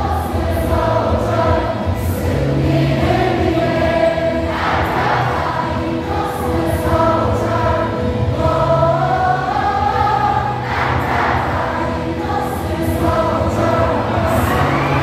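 Stadium crowd of baseball fans singing a cheer song together over amplified music.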